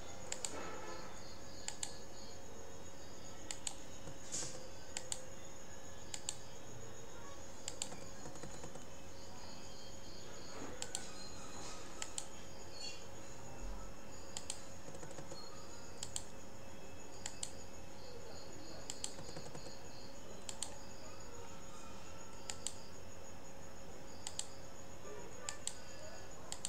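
Scattered clicks of a computer mouse and keyboard, one every second or two, over a steady hum. A faint, high, pulsing chirp comes and goes in the background.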